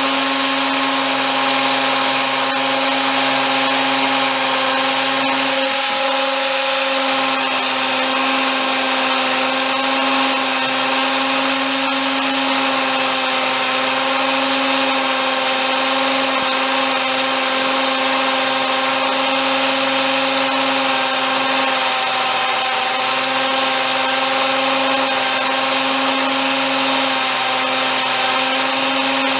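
A handheld electric power tool running steadily for a long stretch, a constant motor whine over a hissing grind, its pitch wavering slightly under load.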